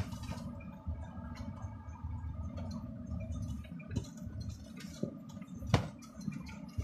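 Cab interior of a large truck or bus on the move: a low, steady engine and road rumble with scattered rattles and knocks from the cab, and one sharp knock near the end.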